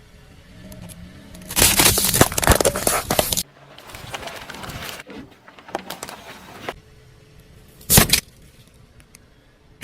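Cracking and crunching as objects are crushed under a car's tyre: a loud run of cracks for about two seconds that stops abruptly, quieter crackling after it, and one short sharp crack near the end.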